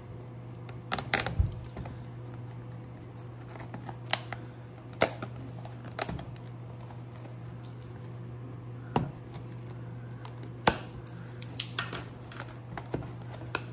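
Ballpoint pen poking and prying at a cardboard box's sealed flap: scattered short clicks and taps of pen and fingers on cardboard, over a low steady hum.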